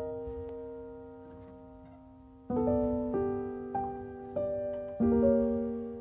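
Background music: slow piano chords struck and left to ring and fade, with a few single notes between them and a fresh chord about two and a half seconds in and again about five seconds in.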